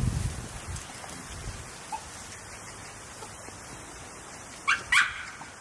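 A low rumble fades out in the first half-second. Near the end a dog gives two short, high yips in quick succession.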